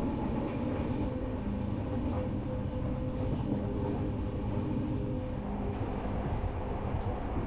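Passenger train running along the track, heard from inside a carriage by the open door: a steady rumble with a faint low hum.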